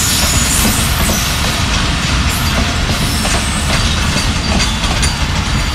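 Passenger coaches of a Pakistan Railways express rolling past close by. A loud, steady rumble of wheels on the track, broken by irregular clicks as the wheels pass over rail joints.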